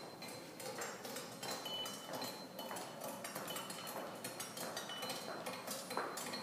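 Irregular light clinks and taps, several a second, with a brief high ringing tone now and then.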